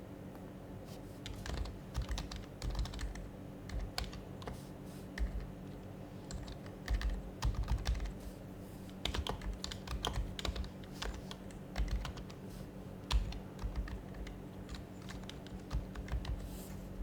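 Typing on an HHKB Professional HYBRID Type-S keyboard, whose silenced Topre switches give soft, muffled keystrokes. The keystrokes come in uneven bursts with short pauses, starting about a second in, over a faint steady hum.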